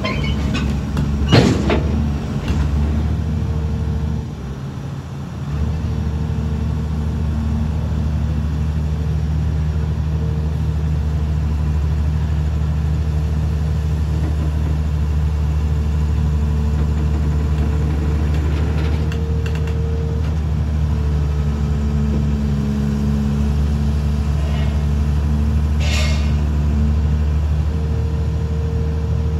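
Diesel engine of an XCMG XE215C crawler excavator running under load as the machine climbs onto a lowbed trailer. The drone eases for a moment about four seconds in, then runs strong and steady. A sharp clank comes about a second and a half in, with a few lighter knocks near the end.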